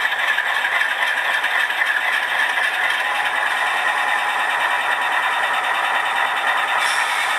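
HO scale model locomotive's ESU LokSound decoder playing a GE diesel engine running steadily, heard through the model's small speaker with no deep bass and a rattling texture. A brief hiss near the end.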